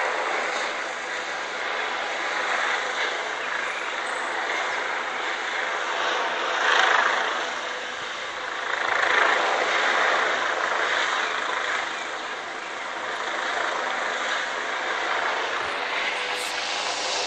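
Police helicopter flying overhead, a steady engine and rotor drone that swells in loudness about seven seconds in and again about nine to ten seconds in.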